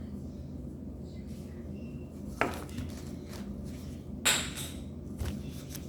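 Jump roping: the rope and feet striking the floor in a few sharp, irregular slaps, loud ones about two and a half and four and a half seconds in and a fainter one near the end, over a steady low hum.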